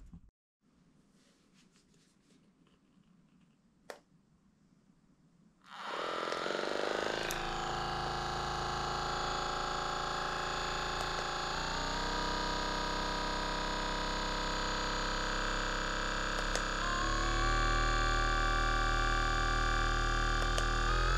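RENPHO percussion massage gun starting with a click and spinning up to a steady buzz about six seconds in. Two later button clicks each step it up to a faster, louder speed.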